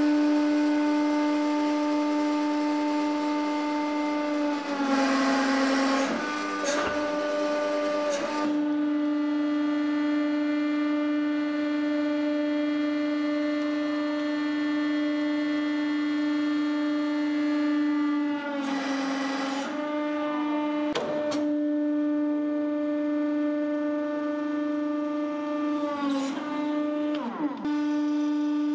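Hydraulic press pump running with a steady, droning whine. Its pitch drops briefly three times as the ram comes under load, with a few short clicks in between.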